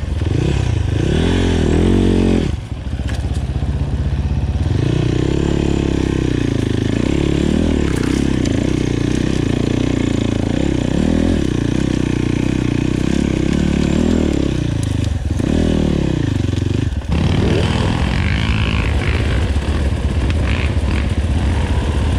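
Enduro motorcycle engine being ridden off-road, the revs climbing and falling repeatedly as the throttle is worked. The throttle shuts briefly twice, a few seconds in and again near the end.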